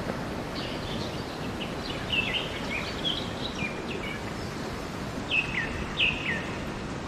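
Steady rush of a swollen, fast-flowing river in flood, with a bird calling over it: a string of short falling chirps, the two loudest about five and six seconds in.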